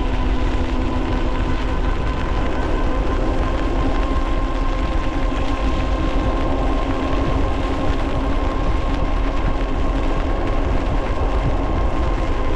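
Ariel Rider Grizzly e-bike riding on a wet road: a steady rumble of wind on the microphone and tyre hiss, with a steady electric motor whine over it.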